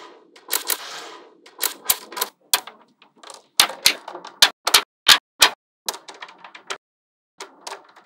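Small magnetic balls clicking and snapping together as strands of them are laid onto a flat grid of balls: sharp irregular clicks, some in quick clusters, with softer rattling between.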